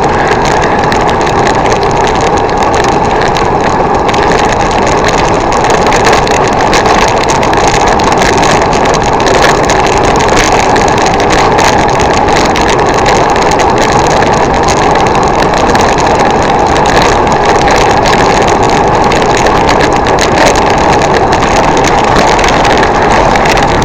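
Steady, loud rushing of wind over a bicycle-mounted camera's microphone while riding on a wet, foggy road.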